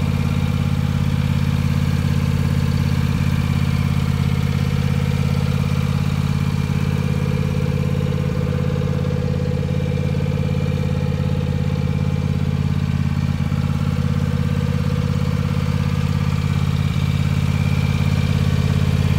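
Cub Cadet XT3 garden tractor's Kawasaki engine running steadily at one even speed, the tractor standing still.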